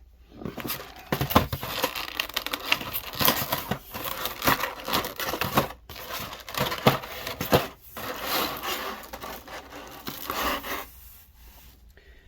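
Plastic packaging crinkling, crackling and clicking as an action figure is worked out of its clear plastic clamshell tray, with irregular rustles and snaps for most of the time before it goes quiet near the end.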